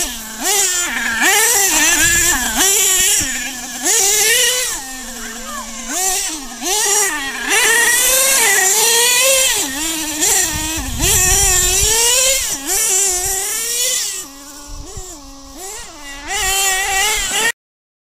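Modded Picco .28 P3 two-stroke nitro engine in an RC monster truck, revving up and down again and again under throttle as the truck is driven. Near the end it drops to a lower idle for a couple of seconds, revs once more, then cuts off suddenly.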